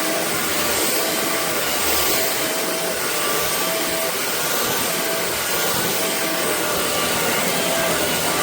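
Shark cordless stick vacuum running steadily: an even motor whoosh with a high whine, unbroken throughout.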